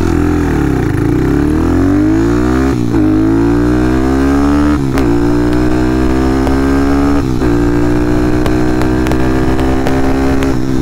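Honda Monkey's single-cylinder engine, bored out to 181 cc and breathing through an Over Racing titanium exhaust, pulling hard under full throttle. The revs climb in each gear, with three quick upshifts, then run on fairly steady near the end.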